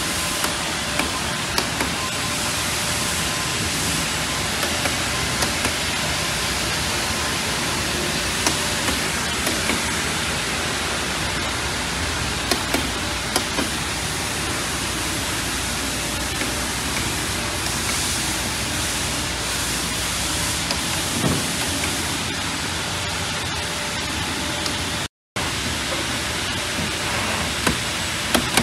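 Vacuum hold-down system of a 2020 Eastman C125 textile CNC cutting table running: a steady, loud rushing hiss with a few faint ticks, broken once near the end by a split-second gap.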